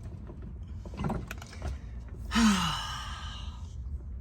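A man's long sigh, a breathy exhale with his voice falling in pitch, a little over two seconds in, a sigh of frustration at a failed electrical unit.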